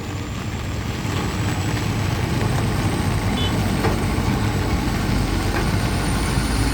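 Heavy truck engine running as the truck moves off along the road: a steady low rumble under an even hiss.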